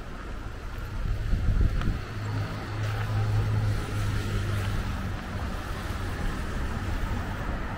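A low engine hum that swells about two seconds in and fades away by about five seconds, over steady wind rumble on the microphone.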